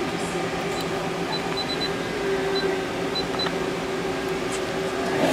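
Steady hum of a CNC turning center standing idle with its spindle stopped, with a few soft clicks as buttons on its control panel are pressed.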